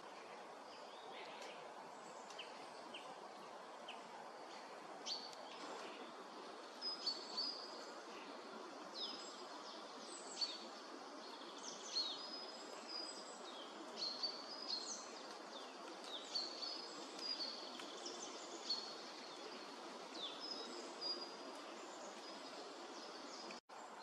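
Small songbirds calling over a steady background hiss: many short chirps and quick falling notes, coming more often from a few seconds in. The sound cuts out for a split second near the end.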